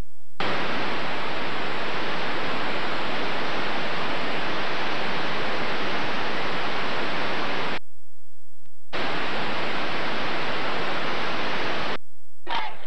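Loud hiss of videotape static from a blank stretch of VHS tape. It drops out for about a second in the middle and stops shortly before the end, when crowd voices and shouting begin.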